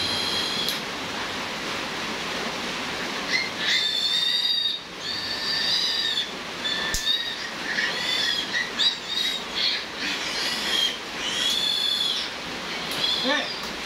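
Newborn piglet squealing in a string of high-pitched cries while it is held up and handled at the snout, the squeals coming thick and fast from about three seconds in.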